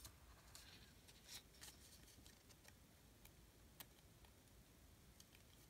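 Near silence, with a few faint ticks and soft rustles of paper cut-outs being handled.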